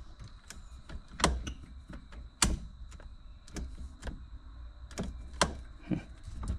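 A few sharp knocks and clicks of handling, the loudest two about one and two and a half seconds in and another near the end, with lighter taps between, over a faint steady high-pitched whine.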